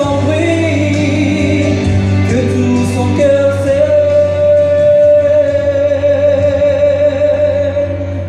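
Live music: a male singer performing a French chanson over instrumental accompaniment, holding one long note from about three seconds in.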